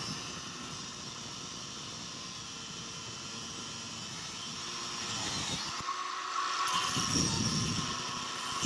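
Angle grinder running with its disc cutting through the steel chain tensioner of a Razor MX650 electric dirt bike: a steady whine with a grinding rasp that grows louder over the last few seconds as the disc bites harder.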